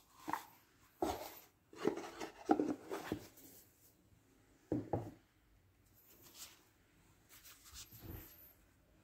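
Cotton-gloved hands handling a cardboard watch box: scattered rubbing and scraping with soft knocks, busiest about one to three seconds in, with another pair of knocks near five seconds.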